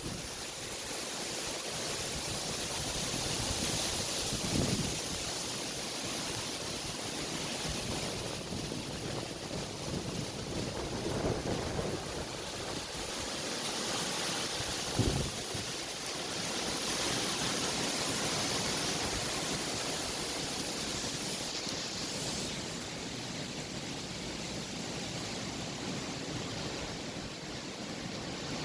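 Strong wind blowing in gusts, a steady rush that swells and eases, with a few brief low buffets of wind on the microphone.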